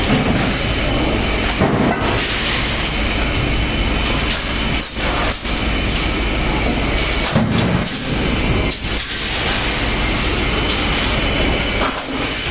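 Loud, steady machinery din of a sheet-metal stamping press shop, with a few brief dips in level.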